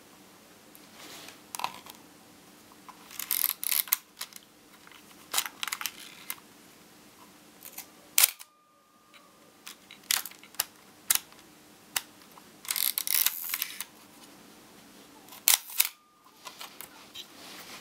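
Praktica Super TL 35 mm film SLR worked by hand: the film advance lever is wound with a short rasping ratchet twice, and the shutter fires with a sharp clack twice, about 8 and 15 seconds in. Smaller clicks of the controls, such as the shutter speed dial being turned, come in between.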